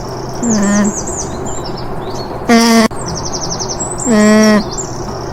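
An animal calling three times in short, level-pitched cries about half a second long, the middle one the loudest and cut off abruptly, over a steady background of birds chirping.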